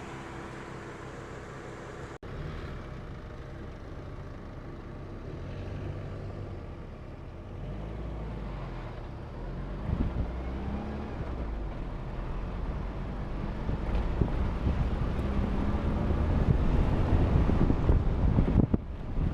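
Vehicle engine running as it drives off-road, its pitch rising and falling as it accelerates from about eight seconds in. The engine and the rushing noise grow steadily louder toward the end.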